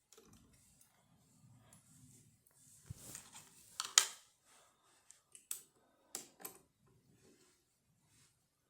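Small steel levers and spacers of a dismantled 5-lever sash lock being handled, clicking and scraping against each other and the lock case. There is a handful of sharp clicks, the loudest about four seconds in.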